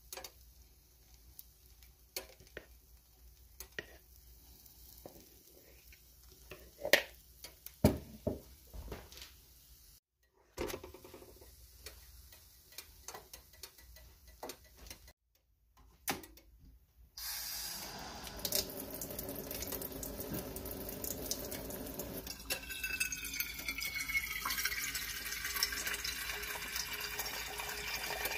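Scattered clicks and knocks of cooking in a nonstick frying pan, loudest about seven to eight seconds in. From about seventeen seconds in, water runs steadily in a kitchen sink and pours into a glass coffee carafe, with a rising tone as the carafe fills.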